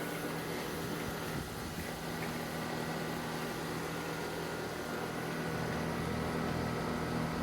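Ryobi ONE+ 18V 13-inch cordless battery push mower running while mowing grass: a steady electric-motor hum with a few steady whining tones.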